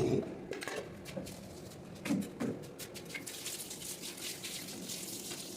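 Irregular soft clicks and smacking mouth sounds of someone chewing food close to the microphone, with a couple of brief low sounds about two seconds in.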